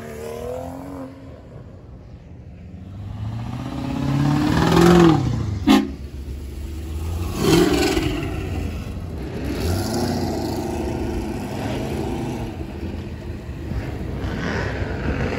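Car engine accelerating hard: its pitch climbs to a loud peak, drops at a gear change with one short sharp crack, then climbs again a few more times.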